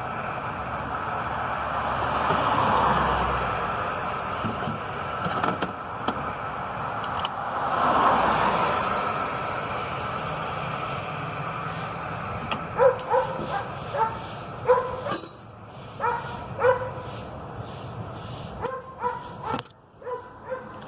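A dog barking and yipping in short calls about once a second through the second half, with several close together near the end. Before that there is a steady background rumble that swells up and dies away twice.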